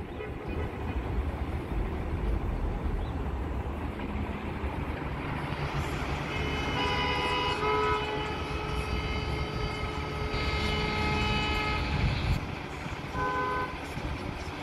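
Low rumble of an M7 electric train pulling into the station, mixed with road traffic. From about seven seconds in, a horn sounds several held notes for a few seconds, then briefly again near the end.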